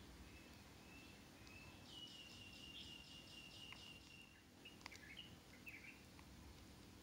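Near silence, with faint high chirping, a quick run of pulses near the middle, and a few faint clicks.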